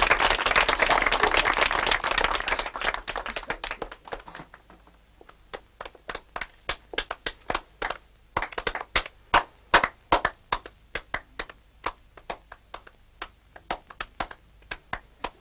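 Applause from the meeting hall for about four seconds, fading out. After it comes a slow, uneven run of single sharp taps, about two a second.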